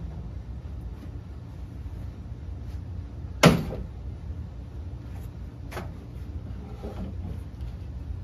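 Bean bags thudding against a wooden cornhole board: one loud thud with a short ring about three and a half seconds in, and a lighter one near six seconds, over a steady low hum.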